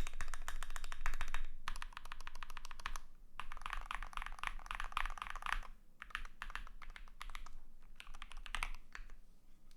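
Typing on a custom KBD75 v3.1 mechanical keyboard with lubed Fekker Panda V2 tactile switches, a brass plate and AKKO ASA-profile keycaps: rapid keystrokes in runs of one to three seconds with short breaks, stopping about nine seconds in.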